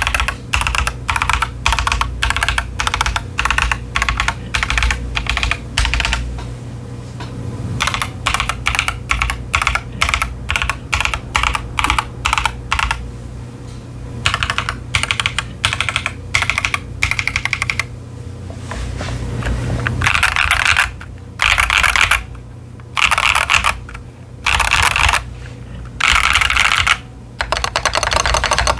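Typing on a Keychron Q10 mechanical keyboard with TTC Chaotic Panda tactile switches and ASA-profile doubleshot PBT keycaps: a steady run of keystrokes with a couple of short pauses. From about two-thirds of the way in, the typing turns into fast bursts of rapid keypresses separated by brief gaps.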